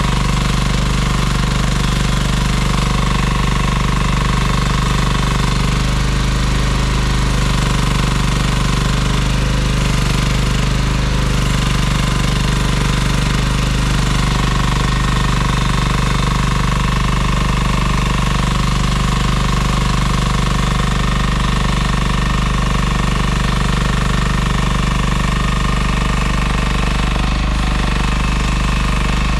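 Nuoman E10 mini excavator's engine running steadily under a constant load, with a rapid, rattly knock and no change in speed.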